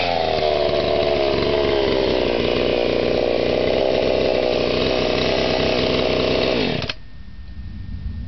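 A 38cc Earthquake chainsaw with a modified free-flowing muffler runs at high revs while cutting through solid red oak. Its pitch dips slightly as the chain bites, then holds steady. About seven seconds in, the sound drops off abruptly to a low rumble.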